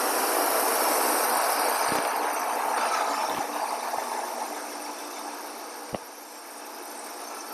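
An engine running steadily, then gradually fading over the second half. There is a single sharp click about six seconds in.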